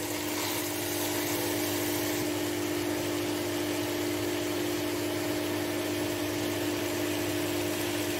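Whole masoor lentils frying in oil in a kadhai: an even sizzling hiss under a steady low hum.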